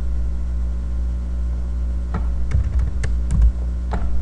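Several keystrokes on a computer keyboard, short clicks bunched in the second half, over a steady low hum.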